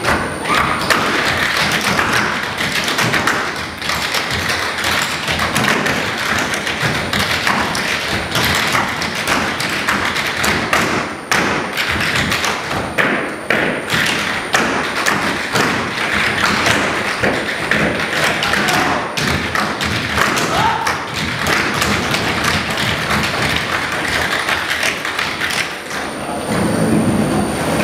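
Tap shoes of a group of tap dancers striking raised stage platforms: a dense, rapid run of taps and thumps.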